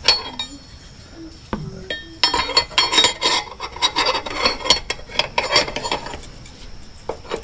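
Hand tools clinking and scraping on metal as a 1-1/16-inch wrench is worked onto a motorcycle's rear axle bolt to loosen it. There are a few scattered clicks at first, then a dense run of metallic clinks and rasping through the middle few seconds.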